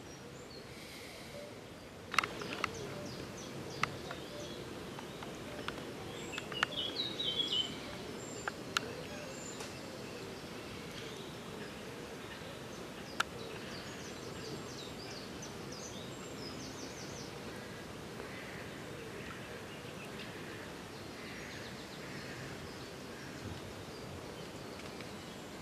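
Steady outdoor background hiss with small birds chirping on and off, and a handful of sharp clicks in the first half, the loudest about two seconds in.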